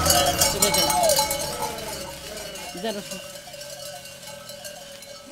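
Bells on the collars of a flock of grazing sheep, clinking and jangling, most busily in the first two seconds and then growing fainter.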